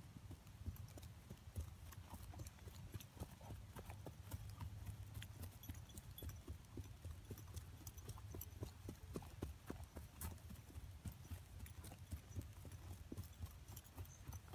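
Faint, irregular hoofbeats of a horse trotting and cantering on grass as it circles on a lunge line, over a low steady rumble.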